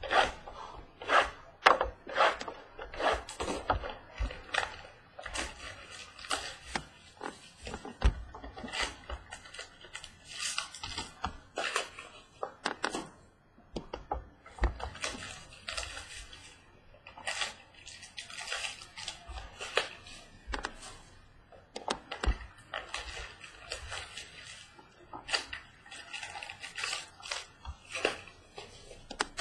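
Trading-card box and foil-wrapped packs being handled: irregular crinkling, rustling and light knocks as the packs are pulled out of the box and stacked.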